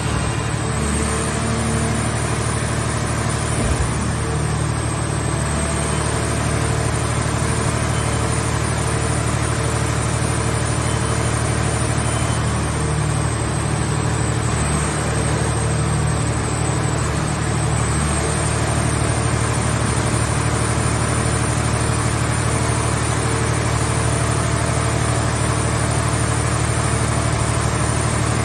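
Car-shell baler's power unit running steadily: a deep, even engine and hydraulic drone with a thin high whine that wavers slightly in pitch.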